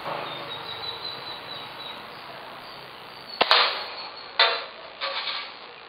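An air rifle fires once, a sharp crack a little over halfway through, followed by two shorter, softer knocks within the next second and a half.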